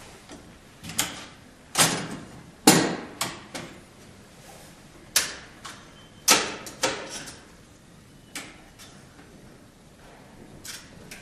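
Sharp clicks and clunks of plastic and metal parts as a Toshiba B-EX4T1 barcode label printer's print head assembly is handled and taken out during a print head change. There are about a dozen separate knocks, the loudest about three seconds in and again around six seconds in, thinning out toward the end.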